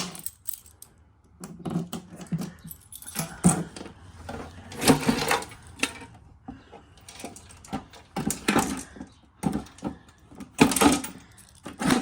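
Keys jangling and handling knocks as a metal fire alarm panel cabinet is locked and turned around, in irregular bursts, with loud breathing close to the microphone.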